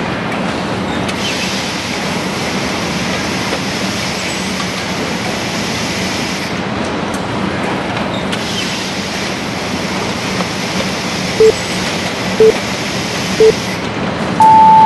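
Automatic tile-box packing machine running with a steady mechanical noise and a low hum. Near the end a countdown timer beeps: three short beeps a second apart, then a longer, higher beep as it reaches zero.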